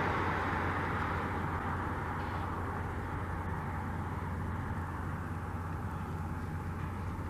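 Road traffic: a passing vehicle's noise fading away over the first couple of seconds, leaving a steady low background rumble.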